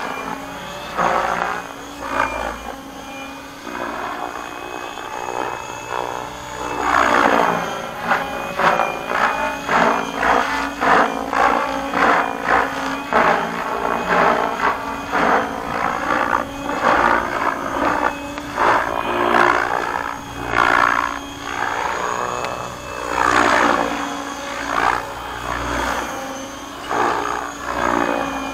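Align T-Rex 700X electric RC helicopter in flight at a low 1700 rpm headspeed. Its rotor blades give a whooshing chop that swells and fades again and again as it manoeuvres, over a steady high whine.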